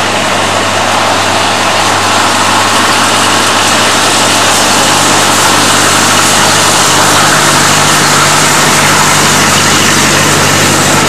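A 600 mm narrow-gauge train running, heard from on board: a steady low engine drone under a loud, even rushing noise.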